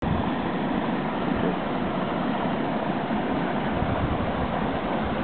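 Steady rushing and babbling of a shallow stream running over rocks.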